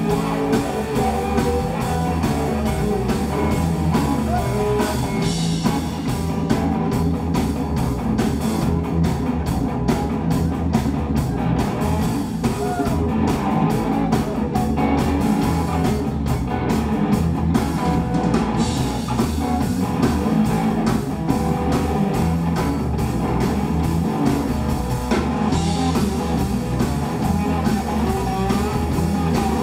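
Live electric blues band playing: electric guitars over bass guitar and a drum kit, a steady, unbroken groove.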